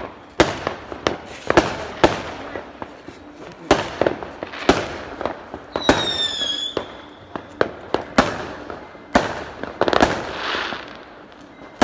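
Fireworks going off: a string of sharp bangs at irregular intervals, with a short falling whistle about six seconds in and a longer crackling hiss around ten seconds in.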